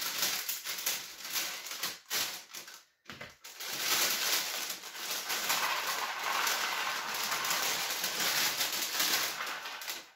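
A plastic bag of cardboard jigsaw puzzle pieces crinkling and rattling as it is opened. After a brief pause about three seconds in, the pieces pour out into a cardboard tray with a dense, continuous rattle.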